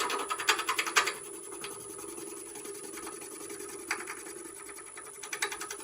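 Rounded carbide turning tool cutting a spinning wood-and-resin bottle stopper on a lathe: heavy scraping for about the first second, then lighter cutting with a few sharp ticks, over the lathe's steady hum. The ticks are the tool chatter on the resin from a rough cut.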